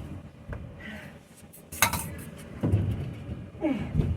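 A few sharp clinks and knocks of hardware and tools being handled while a van bed frame is taken apart, the sharpest about two seconds in.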